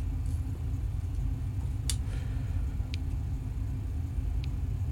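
A steady low rumbling hum with three short, light clicks spread through it.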